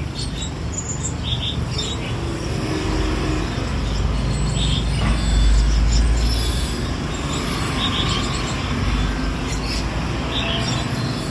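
Laughingthrushes giving short, scattered chirps over a low rumble of road traffic that swells about halfway through.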